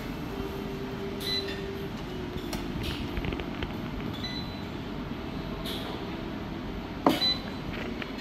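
Metal cooking utensils clinking and scraping against a pan and dishes over a steady background hum, with one louder metallic clank about seven seconds in.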